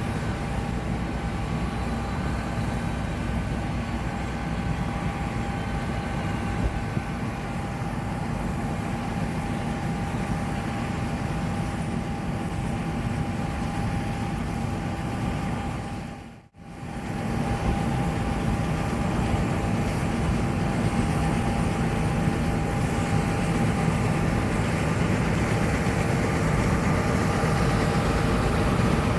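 John Deere S780 combine running steadily while harvesting: a low engine drone under a steady mechanical whine. The sound drops out for a moment just past halfway, then comes back a little louder.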